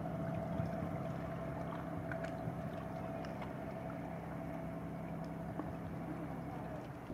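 Ferry engine droning steadily, heard on board: an even low hum with a fainter higher tone over a haze of running noise.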